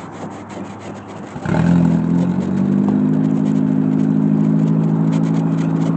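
A car engine starts about a second and a half in and settles into a steady idle, a cold start with frost still on the windows.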